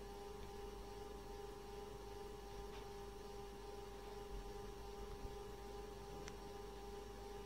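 A faint, steady hum: one unchanging tone with fainter overtones, with a few tiny clicks partway through.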